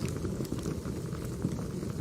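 Crackling wood fire: a steady low rumble of burning logs with irregular sharp crackles and pops.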